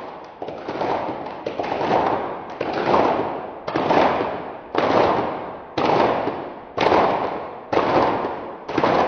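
Rhythmic crackling bursts about once a second, each starting sharply and fading away, the beat gradually speeding up.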